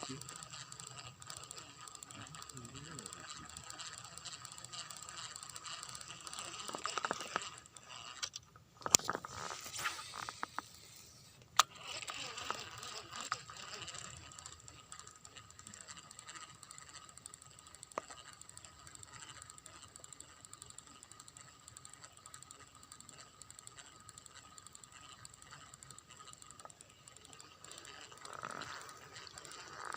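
Baitcasting reel (Abu Garcia Pro Max) being cranked to retrieve a lure, a fine steady ratcheting of its gears, with a few sharp clicks about a third of the way in.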